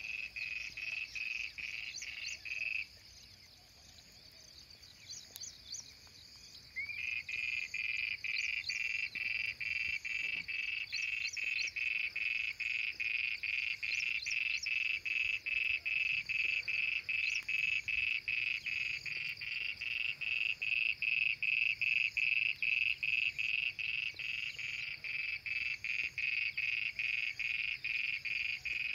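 Frogs calling in a steady, evenly pulsing chorus that breaks off for about four seconds near the start and then starts up again.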